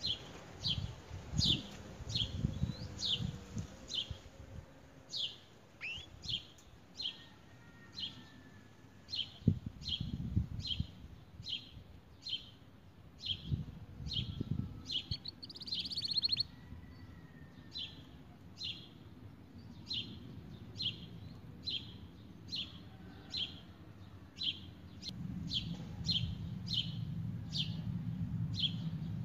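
Domestic canary calling: a short, high chirp repeated about one and a half times a second, with a brief fast trill about halfway through, over a low background rumble.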